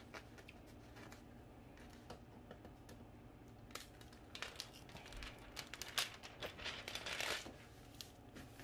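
Faint crinkling and rustling of a diamond painting canvas being handled and smoothed flat by hand, with scattered light clicks; the rustling is busiest from about four to seven and a half seconds in.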